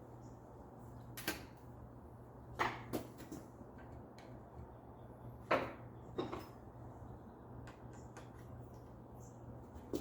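Garage work on a bicycle: a handful of short, sharp clicks and knocks at irregular intervals, like tools and parts being picked up and set down. A steady low hum runs underneath.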